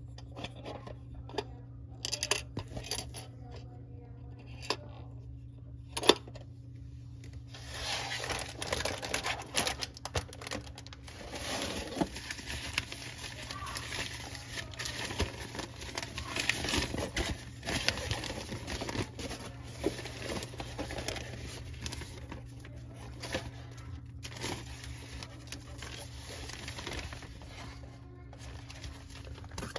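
Hard plastic toy parts clicking and tapping as they are handled, then a nylon drawstring bag rustling and crinkling as it is unfolded and opened.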